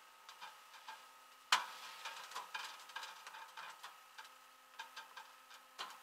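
Irregular light clicks and knocks, with one sharp knock about a second and a half in, over a faint steady high whine.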